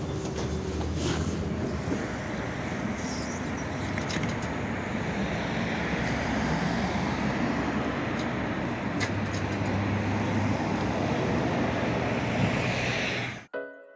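LiAZ-5280 trolleybus heard from inside the cabin while under way: a steady mix of running and road noise. About thirteen and a half seconds in, it cuts off suddenly and music begins.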